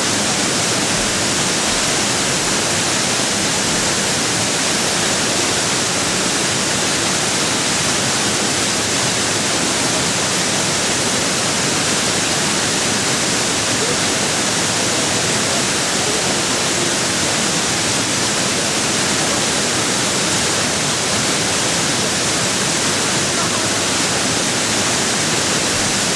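Waterfall pouring, a loud, steady rush of falling water that does not let up.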